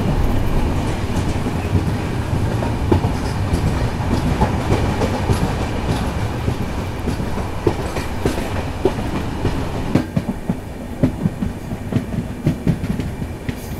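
Himsagar Express passenger train running along the line, heard from the side of a moving coach: a steady rushing running noise with wheels clattering over the rails. About ten seconds in the rush eases a little and the separate clicks of the wheels stand out more.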